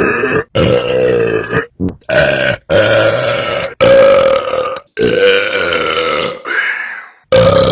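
Loud, drawn-out human belches, about eight in quick succession, each one cut off abruptly by a short gap before the next.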